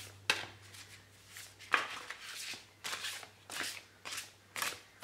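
A deck of large oracle cards being shuffled overhand: a run of short papery slaps and swishes, about two a second.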